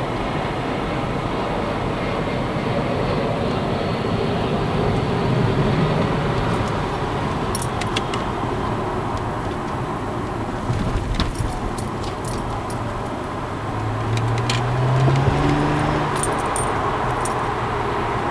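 Supercharged V6 of a TRD Aurion heard from inside the cabin while driving, over steady road noise, its note rising as the car accelerates about five seconds in and again around fourteen seconds in. Light clicks and rattles come through in the second half.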